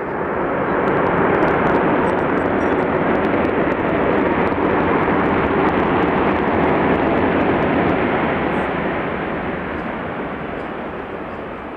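Boeing C-17 Globemaster III's four Pratt & Whitney F117 turbofan jet engines making a loud, steady roar as the airlifter rolls out along the runway after touchdown. The roar swells over the first second or so, holds, then slowly fades over the last few seconds.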